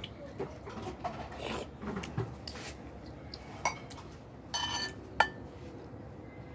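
Eating utensils clicking and clinking against a bowl while eating, with one ringing clink about four and a half seconds in and a sharp tap just after it.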